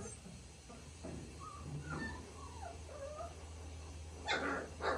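Central Asian Shepherd (Alabai) puppies whining and whimpering in thin, wavering cries as they play, with two louder yips near the end.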